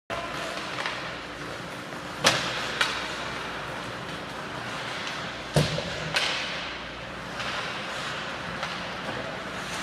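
Ice hockey play in an indoor rink: four sharp clacks of sticks and puck, the loudest a little after two seconds and about five and a half seconds in, ringing in the rink over steady rink noise.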